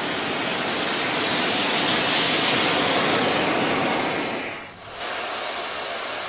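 Loud steady hiss of steam blowing from the steam locomotive Tornado (LNER Peppercorn A1 Pacific No. 60163), as from its open cylinder drain cocks. The hiss dips briefly just before five seconds in, then returns.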